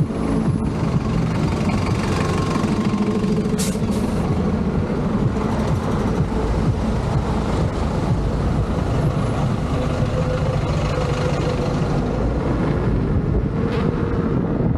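Tire of a Leaperkim Patton electric unicycle rolling under way: a loud, steady rumbling hum with a few faint held tones running through it.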